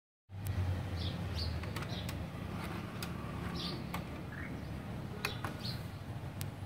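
A bird chirps several times in short high notes over a low steady hum. Scattered sharp clicks come from the Sony CMT-J100's CD tray as it closes and loads the disc.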